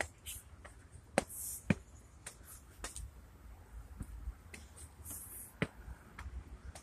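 Footsteps climbing concrete stairs: sharp, uneven steps about two a second, over a low rumble.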